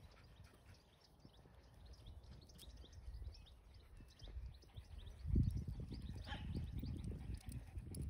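Footsteps walking along a path, a low thudding that grows louder about five seconds in, with a brief rustle. Small birds chirp throughout.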